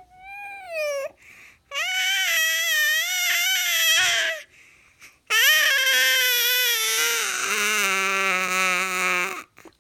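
A baby of about seven months vocalising in long, high-pitched, wavering sounds: a short one, then two long ones, the second sliding down into a lower voice near its end.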